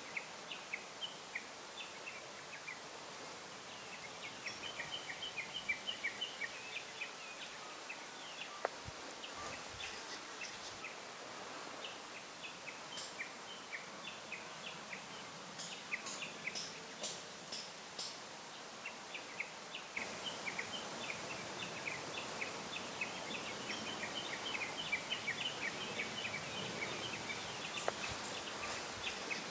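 Small birds chirping in many short, quick notes, over a steady outdoor background hiss.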